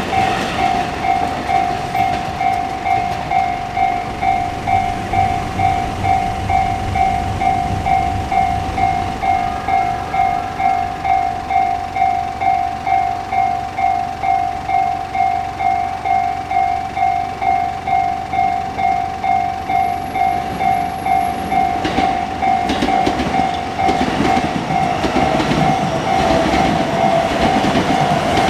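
Japanese railway level crossing warning bell ringing steadily, a regular electronic ding of about two strokes a second. A passing train's rumble and wheel clatter rise under it over the last several seconds.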